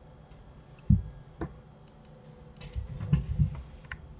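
Scattered clicks of a computer mouse and keyboard, with a dull thump about a second in and a quick cluster of clicks and knocks around three seconds in.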